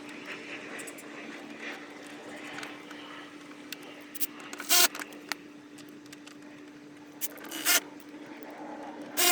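Hand-tool work refitting a plastic fender flare to the wheel arch: three sharp clicks or knocks, about five, eight and nine seconds in, over a faint steady hum.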